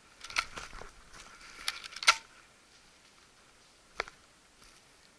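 A quick run of close clicks, knocks and rattles in the first two seconds, ending in one sharp metallic snap, then a single click about four seconds in.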